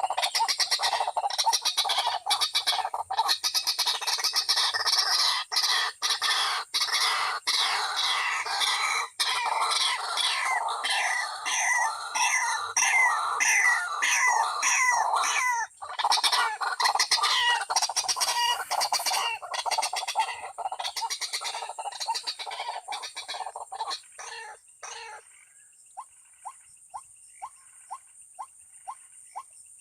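White-breasted waterhen calling: a loud, fast run of repeated harsh rising notes for about 25 seconds, then thinning to a string of short, evenly spaced single notes about two a second. A steady high whine runs underneath.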